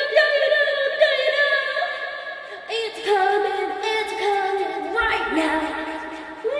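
Music with a woman singing, holding long notes that change pitch every second or so.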